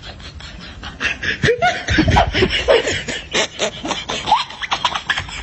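People laughing and snickering, with short rising and falling squeals and a few clicks.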